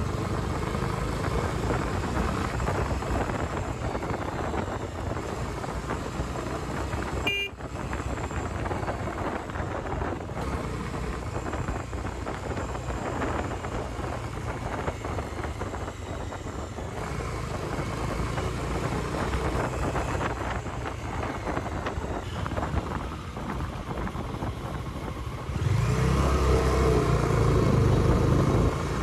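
Bajaj Dominar 400 motorcycle's single-cylinder engine running steadily while riding, heard from the handlebars. A brief high beep about seven seconds in, and near the end the engine gets louder with a rising note.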